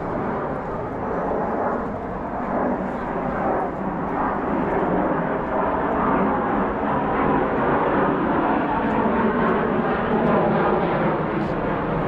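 A steady engine rumble, growing slowly louder, as of a large vehicle or aircraft passing.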